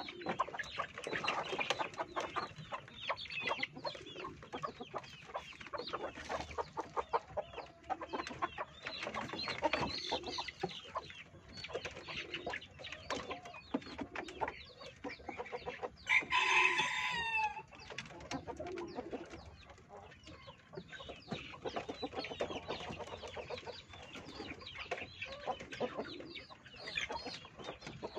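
Kampung chickens clucking continually with many short calls. About halfway through, a rooster crows once, the loudest sound.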